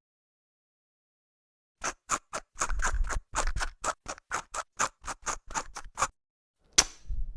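A quick, even run of short sharp clicks or taps, about four a second for some four seconds, followed by one sharper click near the end.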